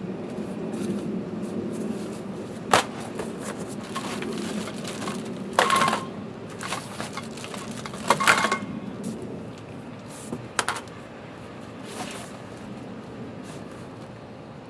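Unpacking sounds as boat parts come out of a cardboard box: plastic wrap and fabric rustling, with several sharp knocks as pieces are set down, including a bundle of plastic-wrapped metal tubes that rings briefly. A low steady hum sits under the first half.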